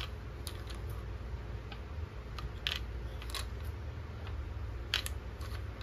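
Small metal clicks and light knocks, scattered and irregular, as socket-wrench sockets are handled and fitted into their holder, over a steady low hum.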